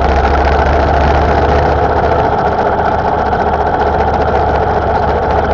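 Motorcycle engine running steadily while riding along at road speed, mixed with wind and road noise.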